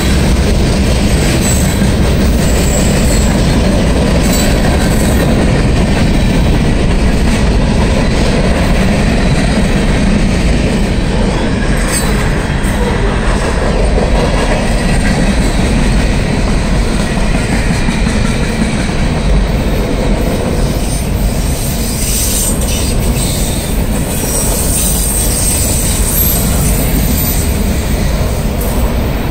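Freight cars of a long Norfolk Southern mixed freight (lumber-loaded centerbeam flatcars, steel-coil cars and autoracks) rolling past: steel wheels on rail, a loud, steady rumble.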